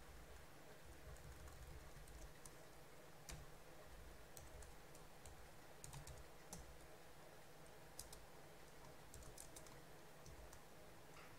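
Faint computer keyboard typing: irregular, scattered keystroke clicks.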